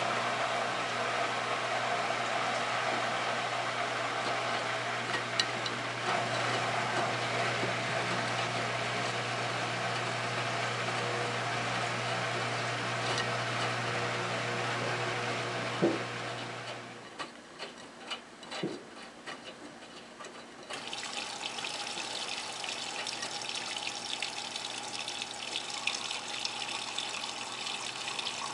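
Miele Touchtronic W3033 front-loading washing machine running a wash: water sloshing and hissing in the drum over a steady low hum. The hum stops about 17 seconds in, leaving a few drips and clicks, and a few seconds later a steady rush of water starts again.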